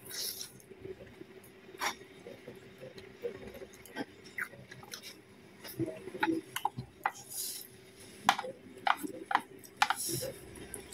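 Eating sounds: a spoon clinking and scraping on a dinner plate, with chewing and small mouth noises, as a string of scattered light clicks.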